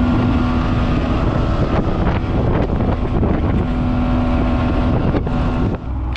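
Old 90 hp Nissan outboard motor pushing a wooden boat under way, running at a steady pitch, with wind buffeting the microphone. Near the end the sound changes abruptly to a lower steady hum.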